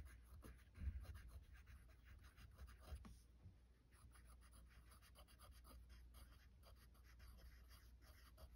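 Faint scratching strokes of handwriting, the sound of a proof step being written out by hand, with a light knock about a second in.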